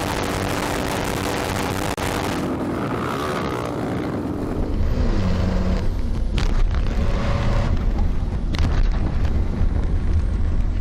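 Onboard sound of rally vehicles driving hard on a dirt road: an engine running under heavy wind and road noise. About four and a half seconds in it becomes a louder, deeper engine drone inside a rally car, with a few sharp knocks as the car bounces over the rough track.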